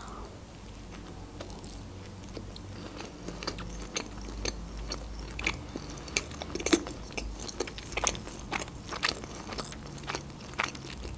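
A person chewing a mouthful of soft dumpling, close to the microphone: an irregular run of small mouth clicks.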